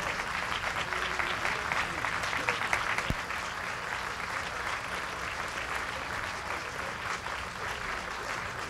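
Crowd applauding, dense for about the first three seconds and then thinning out, with voices among the clapping.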